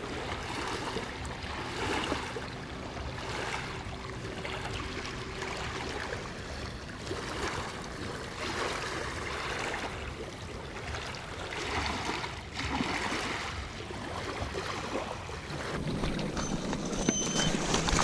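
Small river waves lapping and washing on a pebble shore, swelling every second or two.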